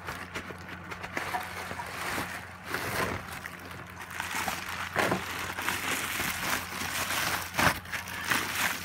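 Bubble wrap crinkling and rustling in irregular bursts as it is handled and pulled off a metal fuel surge tank, loudest near the end. A steady low hum runs underneath.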